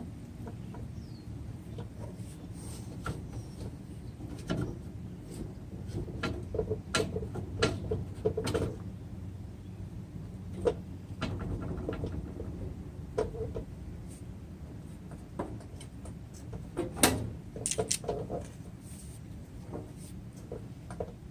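Scattered light clicks and knocks of steel stock being handled and positioned at a metal-cutting bandsaw, over a steady low hum. The knocks are busiest about seven to nine seconds in, with a sharper one near seventeen seconds.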